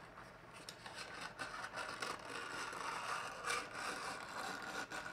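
Lab-Box daylight developing tank's crank being turned by hand, winding the film onto the reel inside: a steady grinding whir with scraping, louder after about a second, that sounds pretty gnarly.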